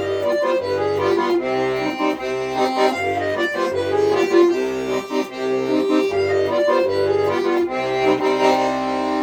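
Accordion playing an instrumental passage of a song: a melody over a steady, evenly pulsing bass accompaniment.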